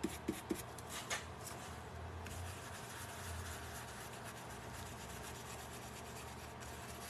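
Stencil brush swirling paint over a stencil on a canvas tote bag: a faint, dry rubbing of bristles on the stencil and canvas, with a few light taps near the start.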